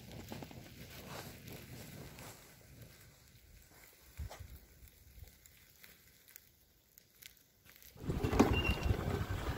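Outdoor ambience: faint rustling and crackling with scattered clicks, turning to a louder, low rushing noise about eight seconds in.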